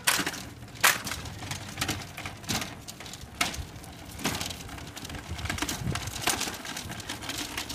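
Footsteps and a pushed shopping cart rolling along, with a sharp click or knock about once a second over a steady low rumble.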